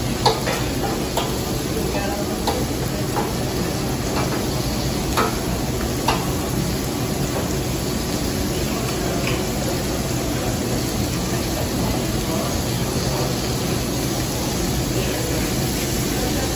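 Steak, chicken and shrimp sizzling on a hot steel teppanyaki griddle. A metal spatula clicks and scrapes against the plate a handful of times in the first six seconds or so.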